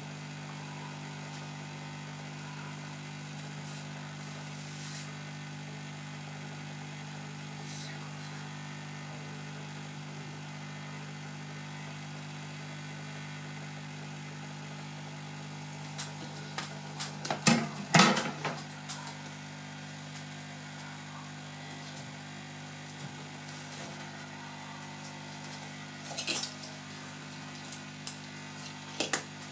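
Hot-air rework gun blowing steadily with a constant hum, heating the glue under a laptop's screen bezel. About two-thirds of the way in comes a cluster of loud clicks and knocks, and a few lighter clicks follow near the end.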